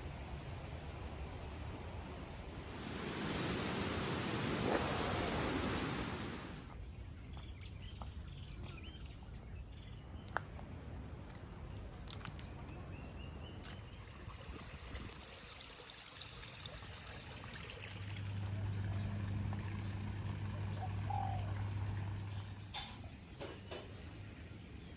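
Outdoor ambience with scattered bird chirps over a steady high-pitched drone. About three seconds in there is a few seconds of rushing noise, and a low steady hum comes in for a few seconds later on.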